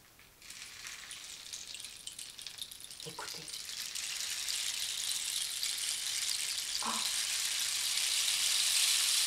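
Rain stick tilted upright, its filling trickling down inside as a fine, rattling hiss that starts about half a second in and swells steadily louder.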